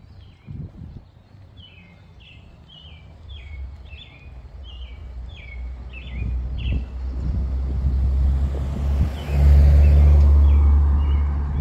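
A bird calls a quick series of about ten short chirps. Then a vehicle comes closer and passes, its low engine rumble and tyre hiss growing loud in the last few seconds.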